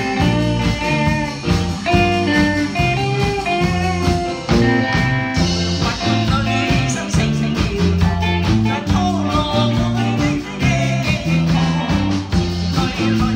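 Live band playing a Mandarin pop song: guitar lines over bass and a steady drum beat.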